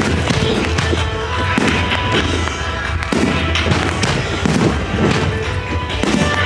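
Fireworks bursting repeatedly, heard over the show's accompanying music.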